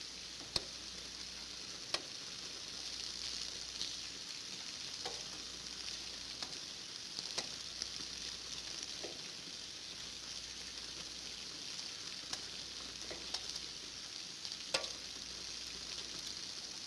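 Steady rain falling, an even hiss, with scattered louder drops ticking every second or two.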